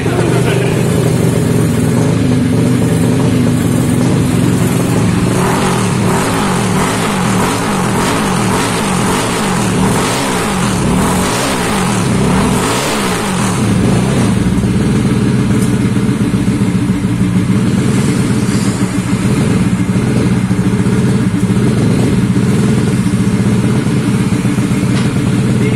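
Tuned Yamaha scooter engines running together. They are revved up and down for several seconds in the middle, then settle into a steady run.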